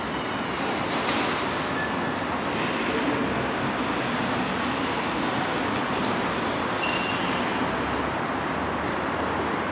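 Steady background din of a railway station entrance hall open to the street: road traffic and concourse bustle blended into an even rumble and hiss, with a sharp click about a second in.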